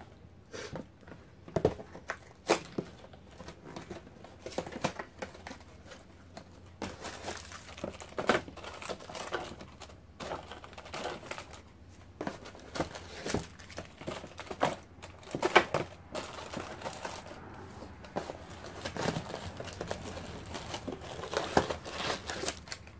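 Plastic-wrapped graham cracker sleeves being pulled from their cardboard box and set into a plastic caddy tray: crinkling wrappers with irregular clicks and knocks of cardboard and plastic.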